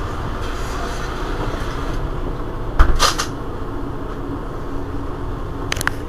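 Interior sound of a Mercedes-Benz Citaro G C2 articulated city bus, its engine running at a steady low rumble. About three seconds in comes a single loud knock with a short hiss, and light clicks follow near the end.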